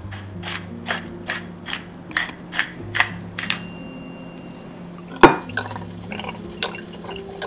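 A pepper mill grinding black pepper in a run of crunchy clicks, about three a second, followed by a bright bell-like chime about three and a half seconds in. Just past five seconds there is one loud, sharp knock. Background music plays throughout.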